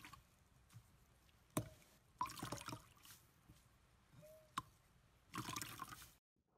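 Faint wet squelching and trickling as a liquid-soaked sponge is squeezed and pressed into a bowl of red liquid, in two bursts about two and five and a half seconds in, with a sharp click before each. The sound cuts off suddenly near the end.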